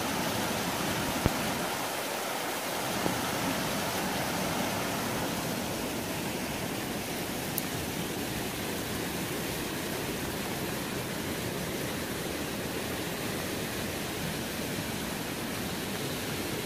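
Steady rushing of a rain-swollen mountain stream tumbling over boulders, with rain falling.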